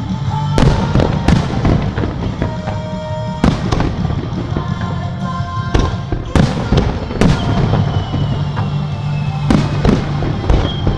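Aerial firework shells bursting, about eight sharp bangs at uneven intervals.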